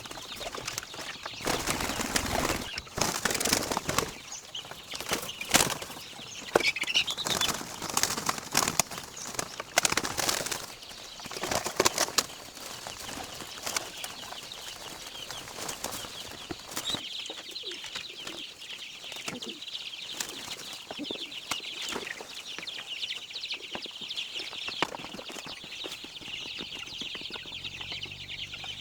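Pigeons flapping their wings in a flurry of sudden rustles and clatters. This settles after about twelve seconds into a steady high-pitched background buzz.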